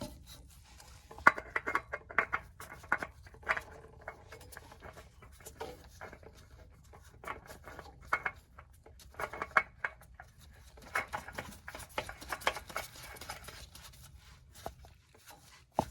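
A new spin-on oil filter being turned onto its mount by hand: irregular light scraping and clicking in short clusters, with pauses between turns.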